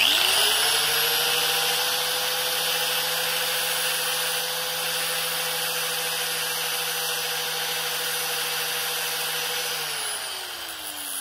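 Electric angle grinder switched on, spinning up within a moment and running at a steady speed while the end of a piston ring is held against its disc to grind the ring gap open. It is switched off about ten seconds in and winds down with a falling whine.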